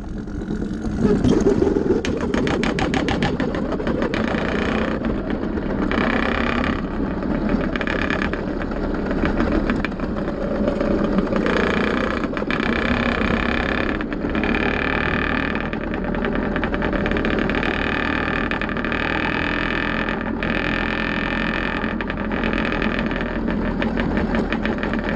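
Two-stroke Minarelli AM6 engine with a CNC 49 mm big-bore cylinder, on a motorized bicycle, running under load while riding. Its note eases off briefly several times and then picks up again.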